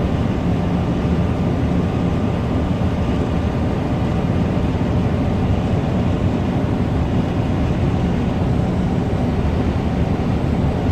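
Steady low rumble of a moving vehicle heard from inside, even and unchanging throughout.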